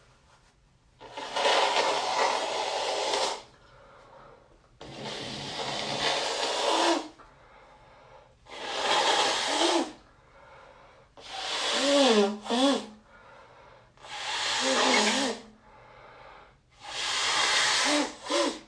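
A congested person blowing their nose hard into a tissue six times, each blow about two seconds of rushing air with short pauses between. The later blows break into a wavering, honking squeal.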